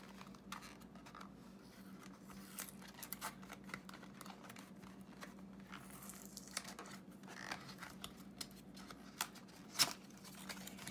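Small cardboard toy box being worked open by hand: scattered crinkles, scrapes and taps of cardboard and plastic, with one sharp click near the end.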